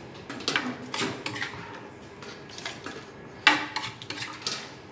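Metal spoon clinking and scraping against an earthenware mortar and a serving bowl as papaya salad is stirred and scooped out. There is a series of sharp clinks; the loudest comes about three and a half seconds in.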